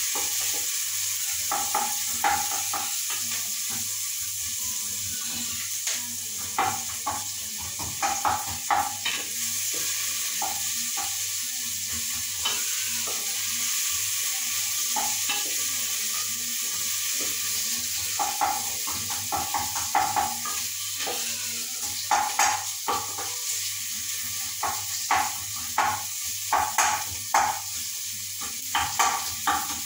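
Onions and chili sizzling steadily as they fry in an aluminium pot, while a wooden spoon stirs them, scraping and knocking against the pot in repeated stretches that come thicker in the second half.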